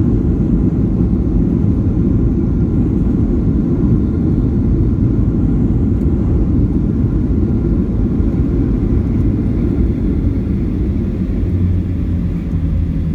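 Steady low rumble of a passenger airliner heard from inside the cabin, with a low hum coming in near the end.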